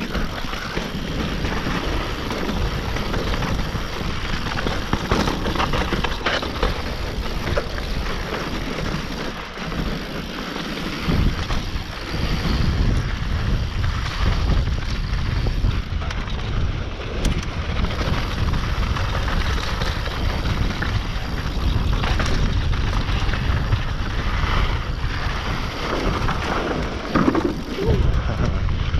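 Mountain bike riding fast down a dirt trail: wind buffeting the microphone, tyres running over dirt and the bike clattering over bumps. The low wind rumble grows heavier from about eleven seconds in.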